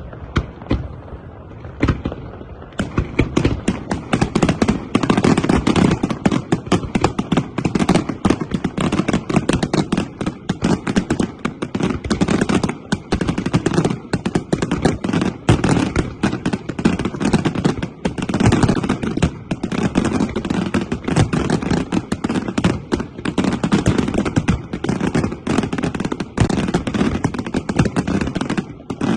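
Aerial fireworks display: a few separate bangs, then from about three seconds in a dense, continuous barrage of rapid-fire shell and cake reports.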